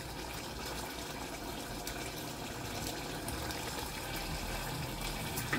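Mutton gravy simmering in an open pressure cooker: a steady, quiet bubbling hiss with a couple of faint ticks.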